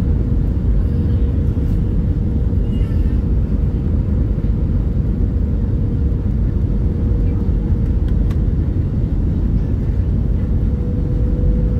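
Cabin noise inside an Airbus A319-112 on approach with flaps extended: a steady roar of its CFM56 engines and rushing airflow, with a constant hum running through it.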